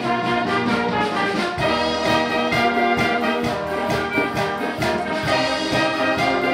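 Brass wind band playing a piece with trumpets and trombones over a steady beat.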